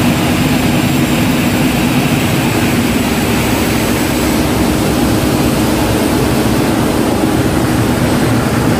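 Ship's engine-room machinery running: a loud, constant drone with a steady low hum and no change in speed.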